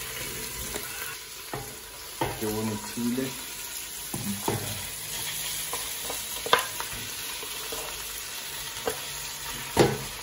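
Pieces of raw lamb sizzling as they go into hot oil with fried onions and spices in a stainless steel pot, a steady hiss with several sharp knocks as pieces land and the pot is handled.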